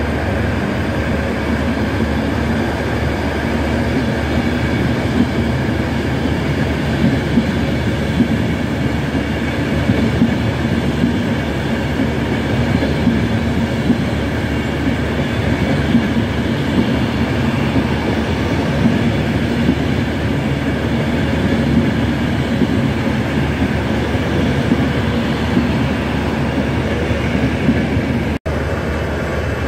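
Avanti West Coast Class 390 Pendolino electric train rolling past at low speed, giving a steady run of rail and electric train noise with a constant hum in it.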